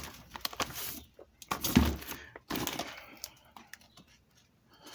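Handling noises: scattered clicks and light knocks, with one heavier thump about two seconds in, as items of a fireworks stash are moved about.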